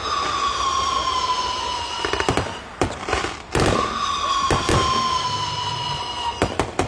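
Fireworks going off: three rounds of sharp bangs and crackles, each followed by a long whistle that falls slightly in pitch over two to three seconds.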